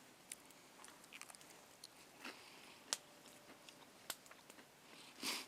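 A person chewing a blueberry muffin: faint, scattered wet mouth clicks, with a short, louder breath-like rush near the end.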